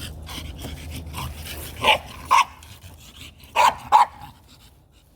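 Dog barking: four short loud barks in two quick pairs, the first pair about two seconds in and the second near the four-second mark.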